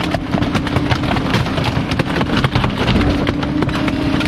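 Rear-loader garbage truck's packer cycling, with a steady hydraulic hum under load. Rapid cracking and clattering of plastic junk runs under it as the blade crushes a plastic tote into the hopper.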